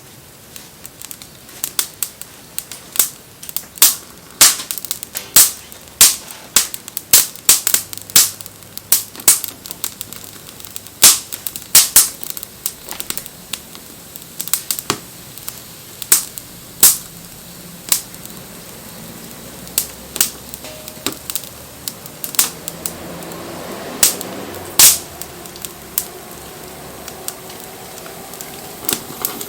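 Wood bonfire crackling, with sharp, irregular pops and snaps several times a second. From about two-thirds of the way in, a soft hiss with faint, wavering whistling tones joins the pops.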